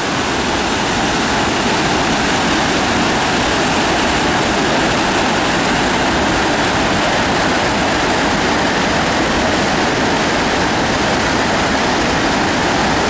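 The Falls of Shin waterfall on the River Shin, its water rushing in a loud, steady, unbroken stream of noise.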